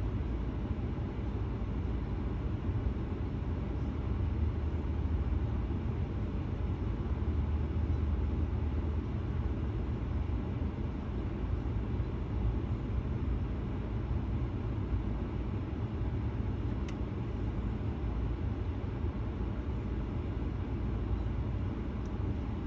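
Steady low rumble heard inside a car's cabin, with the car's engine idling in slow traffic. A single faint click comes about three-quarters of the way through.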